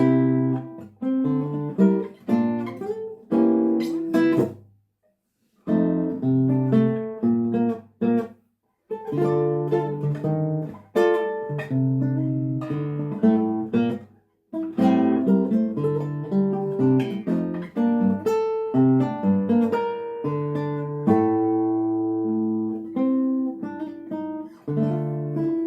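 Solo acoustic guitar playing a composed piece of quick plucked notes and chords. It stops short about five seconds in and again briefly near nine seconds, then settles into longer held notes near the end.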